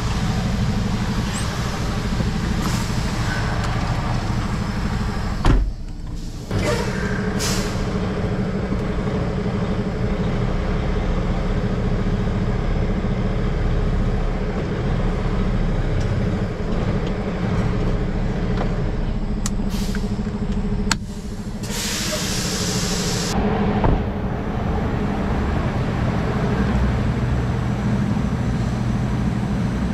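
Semi truck's diesel engine running steadily at low revs. There is a thump about five seconds in, and about two-thirds of the way through a sharp click is followed by a hiss of air lasting about a second and a half, as from the truck's air brakes.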